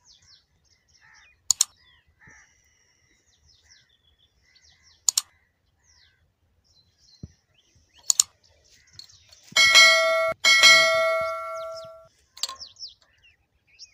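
Sound effects of an on-screen subscribe-button animation: a few sharp mouse clicks, then a loud bell-like notification ding that rings for about two and a half seconds with a brief break. Small birds chirp faintly throughout.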